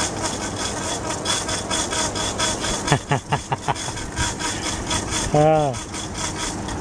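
Window air conditioner running, a steady compressor and fan hum with a rhythmic rasping that repeats a few times a second. The unit sounds sick, yet it is blowing cold on a newly fitted 35/6 µF dual run capacitor.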